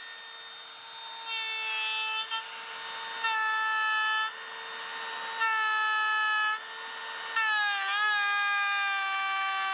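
Milwaukee M18 compact router running at a steady high whine in a router table, its bit cutting into a board in four passes of about a second each. The motor's pitch dips briefly under load about eight seconds in.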